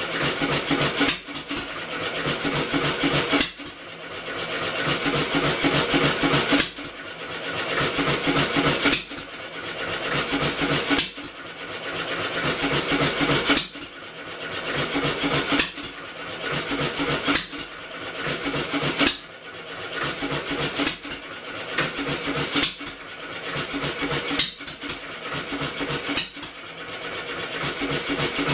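Homemade double-expansion engine built from a two-cylinder air compressor, running with rapid clattering strokes while its flywheel spins. The noise swells and then drops off sharply about every two and a half seconds.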